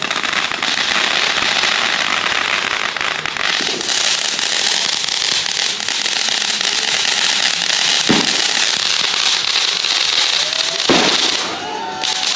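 Consumer fireworks crackling densely and without a break, with a sharper bang about eight seconds in and another about eleven seconds in.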